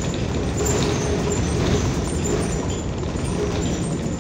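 Cabin noise of a moving New Flyer XN40 natural-gas city bus: steady engine and road rumble with faint high ticks and rattles, easing slightly past the middle.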